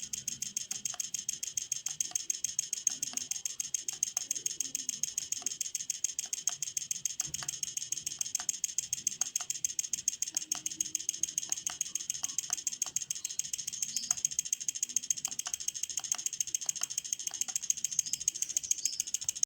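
Inverter MMA welding machine fitted with a PWM pulse-frequency circuit, its output pulsing in a fast, even ticking of roughly eight to ten beats a second, high-pitched and steady.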